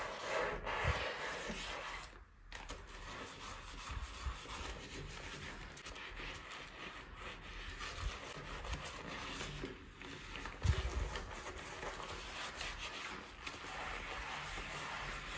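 A bathroom washbasin being scrubbed by hand with dish soap: uneven rubbing and scraping, with a few soft knocks, the loudest about two-thirds of the way through.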